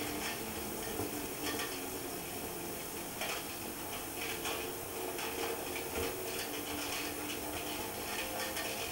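Rally car cabin on the move: the engine running under a constant irregular clatter and rattling.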